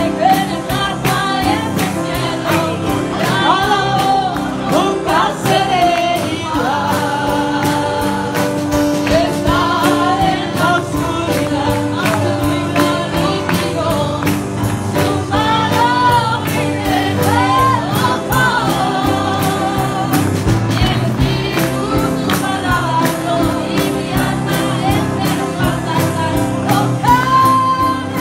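A congregation singing a gospel hymn together, many voices with vibrato, over a steady beat.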